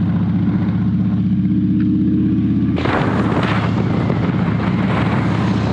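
Harley-Davidson V-twin motorcycle engine running steadily under way. About three seconds in, a loud rush of wind noise on the microphone comes in over the engine.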